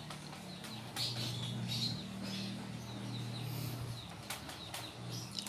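Small birds chirping faintly in a quick series of short high notes, over a steady low hum, with a few sharp clicks.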